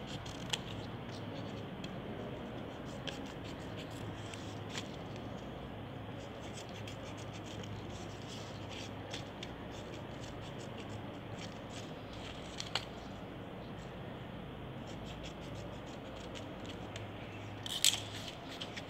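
Scissors snipping paper, with faint paper scratches and rustles over a steady hiss. There are a few sharper clicks, and a short louder rustle of paper near the end.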